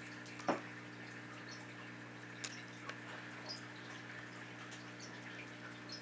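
Golden mantella frogs giving a few short, high, cricket-like chirps, scattered through the second half, over a steady low hum. A single louder click comes about half a second in.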